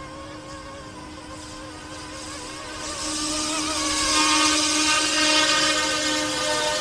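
YXZNRC F09-S RC scale helicopter, its electric motor and rotors running with a steady whine. The sound grows louder about three seconds in as the helicopter lifts off into a low hover.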